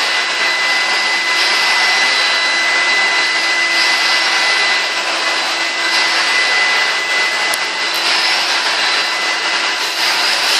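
Numatic Henry vacuum cleaner running steadily: an even rush of air with a constant high-pitched motor whine.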